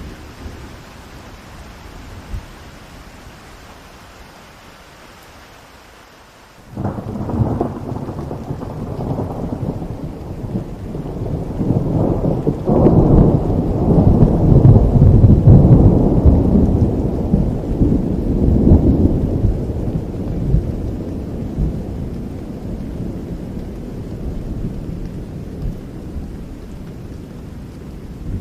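Steady rain falling, then a quarter of the way in a clap of thunder breaks into a long low rolling rumble that swells for several seconds and slowly fades under the rain.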